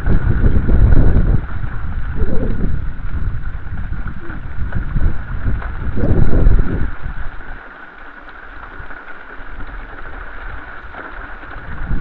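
Gusts of wind buffeting the microphone in heavy low rumbling surges, strongest at the start and about six seconds in before easing off, over a steady faint high hum.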